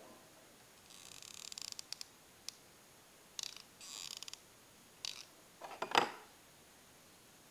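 Hands handling craft-foam petals being wrapped onto a pencil at close range: short scratchy rustles and small clicks in several bouts, the sharpest click about six seconds in.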